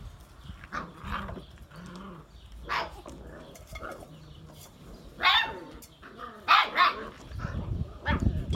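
A litter of six-week-old puppies barking and yapping: several short high yaps at irregular intervals, the loudest about five and six and a half seconds in.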